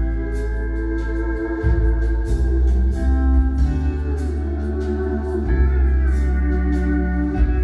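Live band music: pedal steel guitar playing held, organ-like chords that glide in pitch, over electric bass and drums with regular cymbal strokes.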